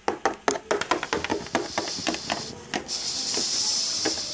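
Small plastic Littlest Pet Shop toy figure tapped and hopped along a hard floor by hand, a quick series of light clicks, followed by a steady hiss in the second half.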